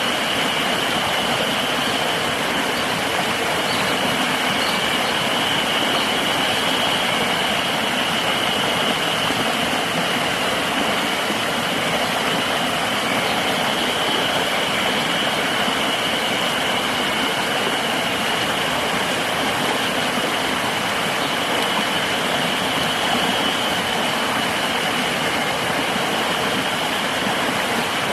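Steady rush of a flowing river, with a continuous high insect drone over it that weakens about three quarters of the way through.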